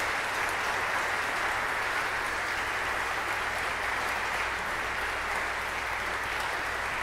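A church congregation applauding steadily.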